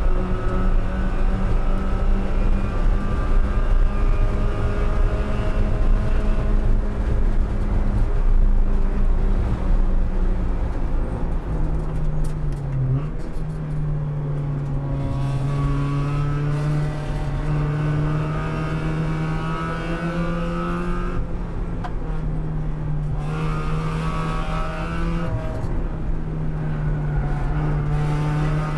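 1999 NB Mazda Miata Spec Miata race car's 1.8-litre four-cylinder engine under racing load, heard inside the cabin with road and wind noise. It holds a steady high note on the straight. Around twelve seconds in the note drops with a short dip as the car slows and shifts down. Then the pitch climbs gradually as it pulls through the corners, with another shift near the end.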